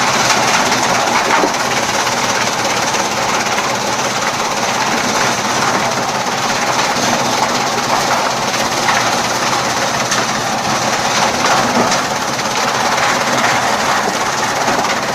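Chaff cutter running: a loud, steady mechanical rattle with scattered sharp clicks.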